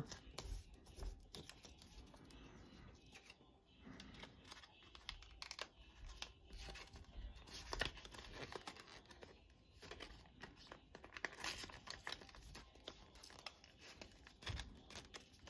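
Faint rustling and crinkling of folded paper banknotes being pushed into a small paper envelope, a scatter of soft crackles and taps.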